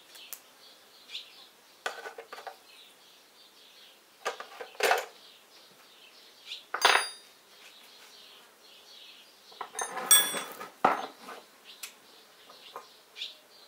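Steel spanners and tools clinking and clanking on a workbench as they are picked up and set down. The sharpest clanks come about 5, 7 and 10 seconds in, some leaving a short metallic ring. Faint insect buzzing sits underneath.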